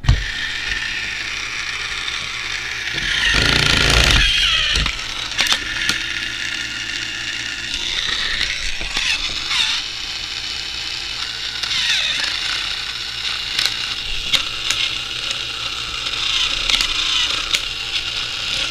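Battery-powered Tomy Trackmaster toy engine's motor running in the hand, its gears whirring with rattling clicks, the sign of a broken gear in the drive. It gets louder for a couple of seconds about three seconds in.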